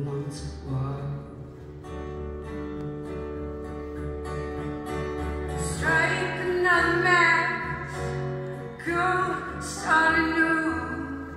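Acoustic guitar playing with a woman singing over it. Sustained notes carry the first half, and her voice comes in stronger, in long gliding phrases, from about halfway through.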